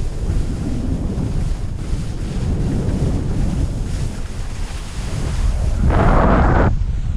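Wind buffeting the microphone of a skier descending a snowfield, a steady low rumble, with skis scraping over firm spring snow. The scraping swells into a loud rasp about six seconds in, during a turn.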